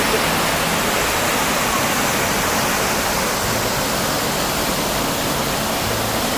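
Steady, loud rush of falling water, an even hiss with no breaks.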